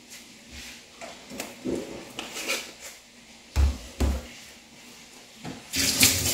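Small kitchen handling knocks with two dull thuds about halfway through, then a kitchen tap starts running near the end as hands are washed under it.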